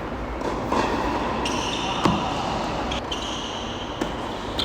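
Tennis ball strikes on the court, racket hits or bounces. The sharpest is about two seconds in and fainter ones follow near the end, over a steady high buzz in the background.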